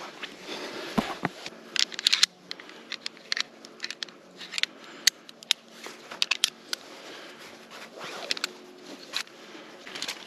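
Irregular sharp crackles and clicks with soft rustling, from camping gear being handled close to the microphone.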